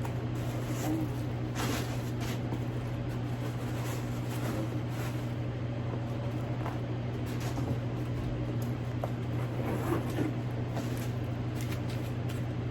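Faint rustling and a few light clicks of a handbag and its packaging being handled, over a steady low hum.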